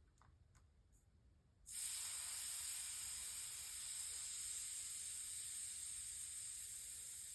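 Air hissing out of a Honda CRF125's front tire tube through its valve stem as the tire is deflated. It starts suddenly about a second and a half in after a few faint clicks, then holds as a steady hiss, easing only slightly.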